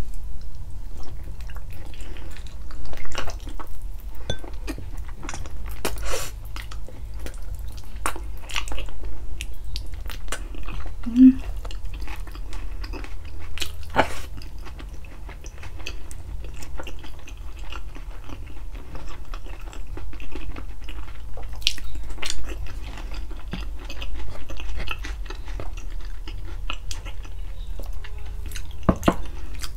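Close-miked chewing and biting of spicy balbacua, a stew of pork feet: irregular wet mouth sounds and clicks, unhurried, over a low steady hum.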